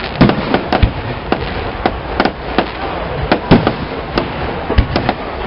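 Aerial fireworks shells bursting in quick, irregular succession: a string of sharp bangs, several a second at times.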